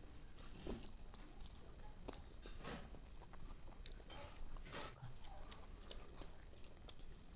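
Faint eating sounds: people chewing and mixing rice and vegetables by hand on steel plates, with scattered soft clicks and taps.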